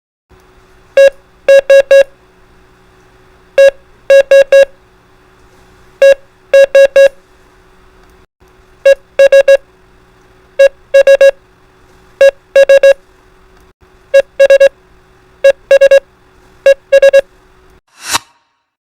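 Morse code beeps keyed as E S, one dit then dit-dit-dit (the CW abbreviation for "and"), repeated nine times and getting faster. A faint steady drone runs underneath, and a short swish comes near the end.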